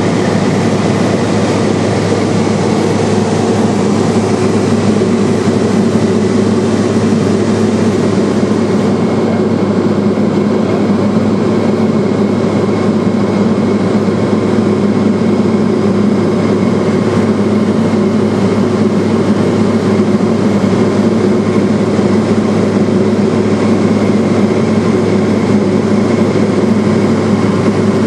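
Cessna Silver Eagle's turboprop engine and propeller droning steadily in flight, heard inside the cabin as a loud, even hum with a faint high whine above it.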